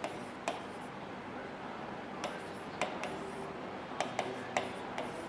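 Stylus writing on an interactive display board: a series of sharp taps as the pen tip strikes the screen, with short faint scratchy strokes between them.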